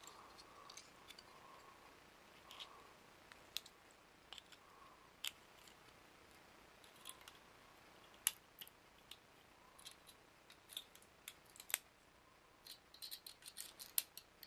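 Scattered small clicks and scrapes of a hand tool and fingers working on a small plastic electronic device and its circuit board, coming more thickly near the end.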